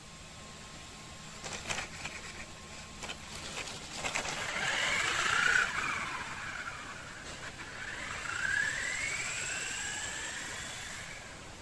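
Brushless RC buggy motor (Surpass Hobby 3650 6900kv) whining as the car speeds up and slows, its pitch rising and falling, loudest about five seconds in, with a long rising sweep near the end. A few sharp clicks or knocks sound in the first four seconds.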